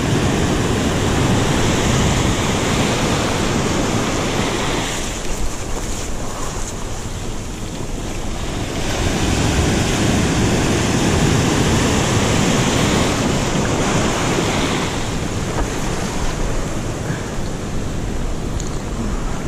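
Surf breaking and washing around rocks at the water's edge, surging loud and easing off in turn, with wind buffeting the microphone.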